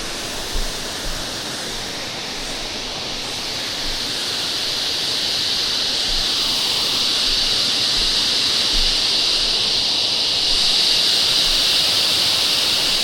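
Waterfall rushing: a steady hiss of falling water that grows gradually louder over the first several seconds, then holds.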